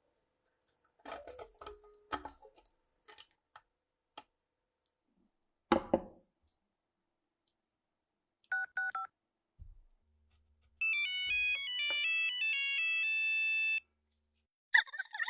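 A few scattered clicks and one sharp knock, then a short two-tone electronic beep. After that comes a ringtone-like melody of stepped electronic tones lasting about three seconds.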